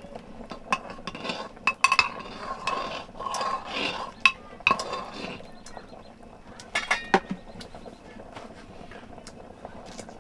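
Steel cooking pots, lid and utensils being handled: sharp metal clinks and knocks, some ringing briefly, in a busy run over the first five seconds and again about seven seconds in.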